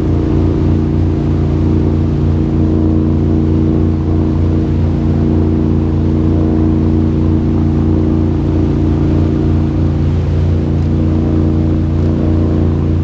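Tour boat's engine running at a steady speed, a low, even drone.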